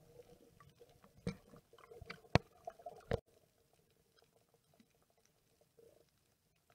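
Underwater sound picked up through a snorkeler's camera housing: faint scattered clicking and crackling, with a few sharp knocks in the first half, then almost quiet.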